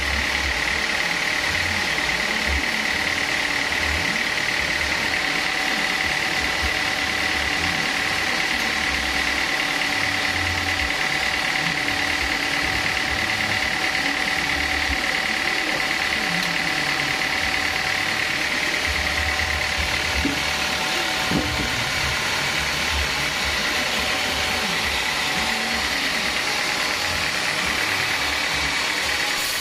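Home-built vertical band sawmill running steadily, a continuous machine drone with a steady high whine from the blade drive.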